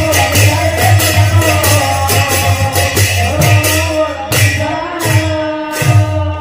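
Kirtan music: a two-headed barrel drum beating with hand cymbals clashing in a quick, steady rhythm over sustained pitched tones. In the last two seconds the beat thins out to a few widely spaced strikes.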